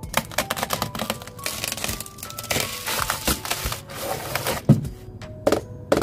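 Bubble wrap being cut open and pulled off a boxed keyboard, with dense crinkling and clicking and a louder knock about three-quarters of the way through, over background music.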